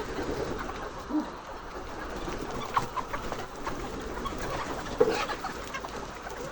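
A flock of laying hens making low calls and clucks together, with a few short, louder calls about a second in, near three seconds and again near five seconds.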